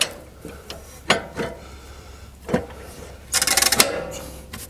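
Sharp metal clicks and knocks from adjusting the clamps holding the cedar cants on a bandsaw mill's bunks. About three and a half seconds in comes a quick run of rapid clicks, like a ratchet or crank being worked.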